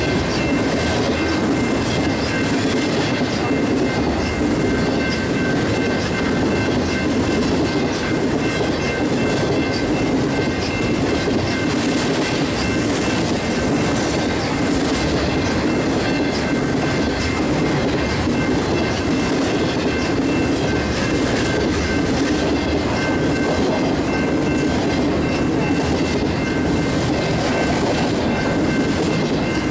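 Intermodal freight train cars rolling past, wheels clacking over the rail joints in a steady, unbroken rumble, with a faint steady high ringing from the wheels and rails.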